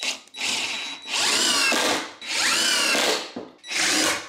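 Cordless impact driver driving 3-inch decking screws through a 2x4 into a 4x4 in several runs of about a second each. The motor's pitch climbs at the start of each run.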